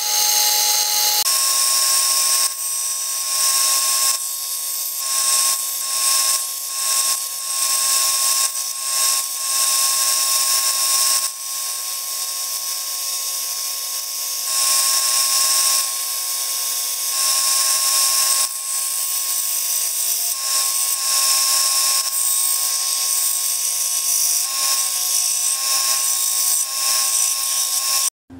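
Benchtop belt sander running, its abrasive belt grinding wooden handle scales with brass pins through them. A steady motor whine sits under a gritty sanding hiss that swells and eases every second or two as the wood is pressed onto the belt and lifted off.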